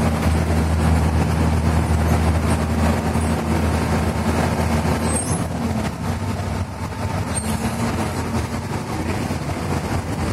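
Bus engine running under way, heard from inside the driver's cab, with road noise: a steady low drone that eases off about halfway through.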